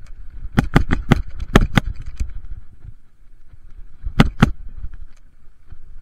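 Mountain bike clattering as it rides down a rough dirt trail. A quick run of sharp knocks comes in the first two seconds and two more about four seconds in, over a steady low rumble of tyres and wind.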